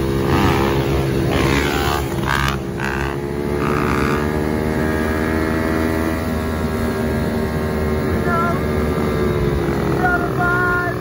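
Dirt bike engines running at a fairly steady cruising pitch, with road and wind noise. A brief knock about two and a half seconds in.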